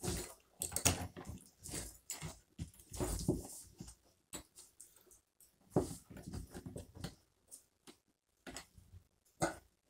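Hands fumbling at a mobile home shower head and its nut through a small access hole in the drywall: irregular scraping, rustling and knocking, with sharper knocks about six seconds in and near the end.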